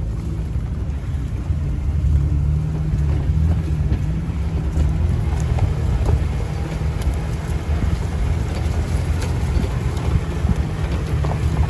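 Jeep driving slowly along a dirt trail: a steady low engine and drivetrain drone, with scattered light clicks over it from about halfway in.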